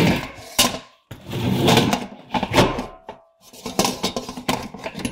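Steel rolled-lip drum being fitted to the cyclone's lid and clamp ring: a run of metal clanks, scrapes and rattles, with brief metallic ringing about a second in and again near the end.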